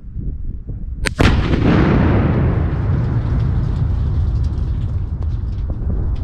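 Tannerite exploding target detonating at the base of an old silo: a sharp double crack about a second in, then a long low rumble from the blast that fades only slowly.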